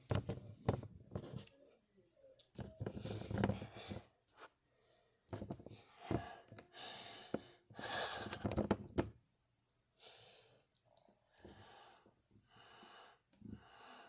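A person making breathy wheezing and gasping sounds in a series of short bursts separated by quiet gaps, the longest near the middle.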